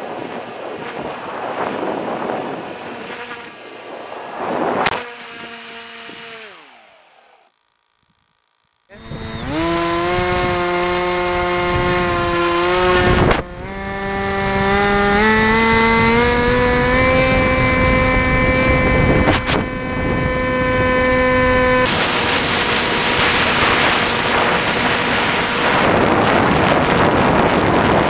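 Bixler 1 RC plane's brushless electric motor and propeller whining as heard from the onboard camera, its pitch rising in several steps as the throttle is opened and then holding steady. Wind rushes over the microphone at the start and swamps the motor near the end. There is a brief dead silence after the first few seconds.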